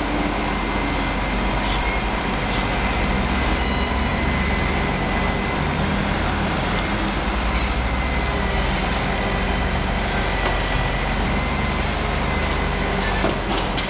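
Garbage truck's diesel engine running steadily under load while its hydraulic crane lifts an underground waste container, with a thin steady whine over the engine hum and a few faint clicks.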